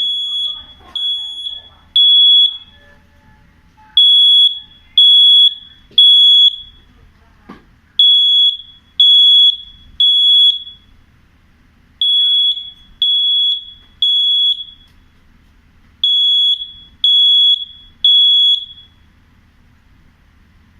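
Tuya Zigbee smoke alarm sounding: a loud high-pitched beep in groups of three, one beep a second with a pause after each group, five groups in all before it stops near the end. This is the standard three-beep temporal pattern of a smoke alarm in alarm.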